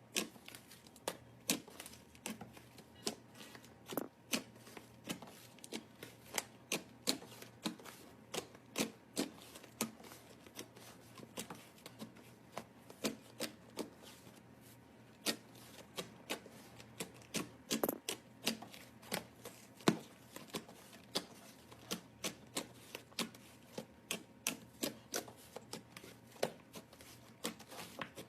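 Slime being pressed and worked by hand, giving irregular sharp clicks and pops, about two a second.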